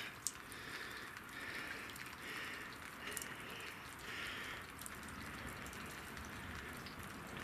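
Faint intermittent hiss of a pressurized gasoline stove's jet with the fuel valve cracked open, only a little fuel coming out to prime it.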